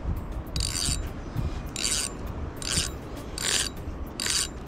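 A rasping rub repeated five times, about 0.8 s apart, over a low rumble.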